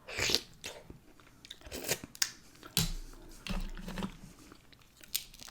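A person chewing and eating close to the microphone, with a scattering of short, sharp mouth clicks at irregular moments.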